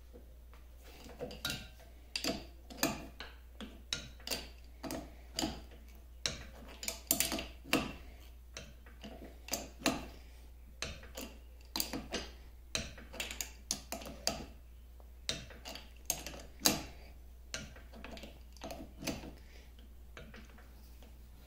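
Irregular sharp metallic clicks and clinks, one to three a second, as a wrench works the nut holding the ball crank handle on a 1950 LeBlond Regal lathe.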